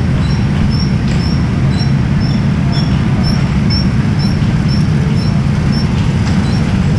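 Steady low rumble of go-karts running around an indoor track, with a short high chirp repeating about twice a second.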